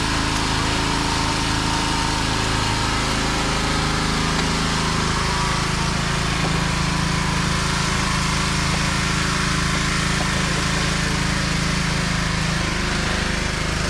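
An engine running steadily at a constant speed; its tone shifts slightly about five seconds in.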